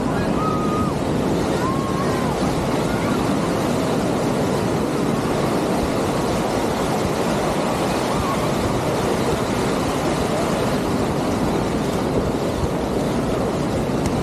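Ocean surf washing on a sandy beach, a steady unbroken rush, with wind buffeting the microphone.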